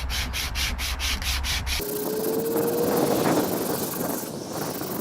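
Sandpaper, likely 60-grit, rubbed back and forth along a wooden guitar neck in quick, even strokes, about four or five a second. The strokes stop abruptly a little under two seconds in. A different rushing noise with a faint rising whine follows.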